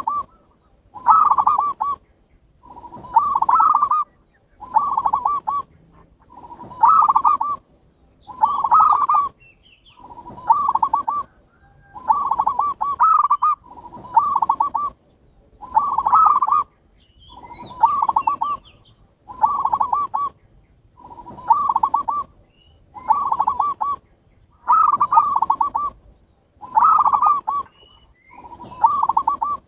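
Perkutut (zebra dove) cooing, the same song phrase repeated about every two seconds. Each phrase starts with a short note and runs into a quick rolling coo.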